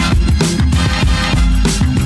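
Loud upbeat electronic music with a steady beat and heavy bass.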